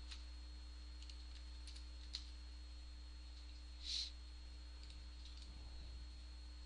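Scattered faint computer keyboard and mouse clicks, a few taps over several seconds, over a steady low electrical hum and a faint high whine. A brief hiss about four seconds in is the loudest sound.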